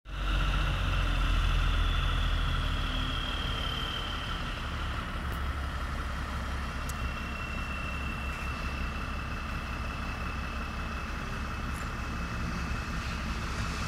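Locatelli Grill 830 mobile crane's engine running steadily under load, with a thin high whine over it. It is a little louder over the first few seconds, then settles.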